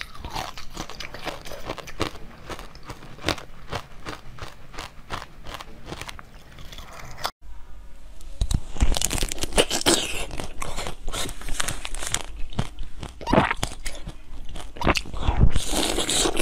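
Mouth eating sounds: many quick, crisp crackling crunches as a blue jelly donut is bitten and chewed. After a sudden cut about seven seconds in come louder, separate bites and chewing into a whole orange, peel and all.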